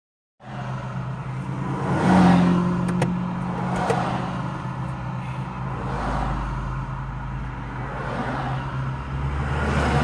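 Car engine and road noise heard inside the cabin: a steady low hum, a little louder about two seconds in, with a few light clicks.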